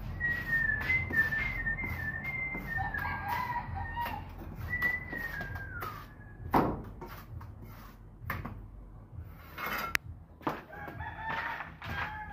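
Roosters crowing: several long, wavering calls overlap through the first few seconds and come again near the end. Underneath are short scrapes and taps of a steel trowel working cement mortar, with one sharp knock about six and a half seconds in.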